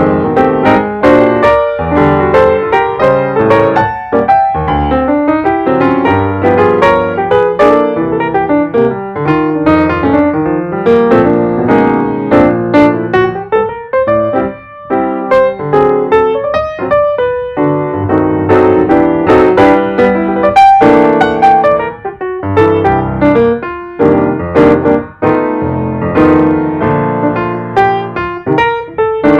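Background music: piano playing a steady run of notes throughout.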